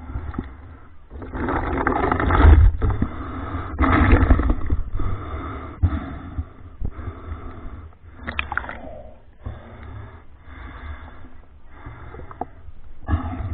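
Water sloshing and splashing against a camera held at the surface by a swimmer, in irregular surges with a low rumble. The strongest surges come about a second and a half and about four seconds in.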